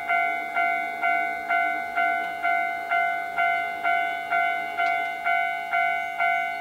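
Railway level-crossing warning bell ringing steadily, a little over two strikes a second, each ring fading before the next.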